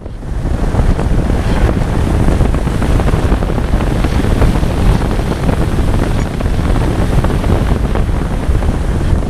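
Strong wind rushing and buffeting over the microphone of a camera riding on a Reichard Blizzard model glider in flight.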